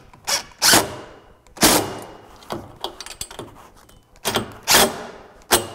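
Cordless impact driver run in several short, sharp bursts, driving in the bolts that hold a voltage regulator to a steel mounting bracket.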